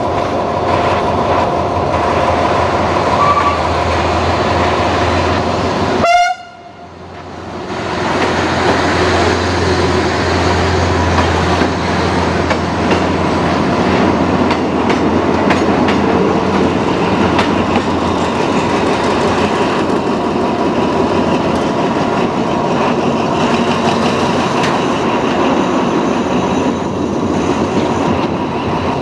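Track-maintenance rail vehicle hauling two ballast hopper wagons past: engine drone and wheels clacking on the rails. A brief sharp loud sound about six seconds in, after which the sound drops away for a second or two.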